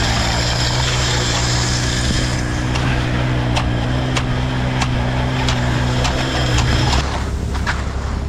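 A motor engine running steadily, with a high whine over the first couple of seconds and scattered light ticks after it. The engine sound changes abruptly about seven seconds in.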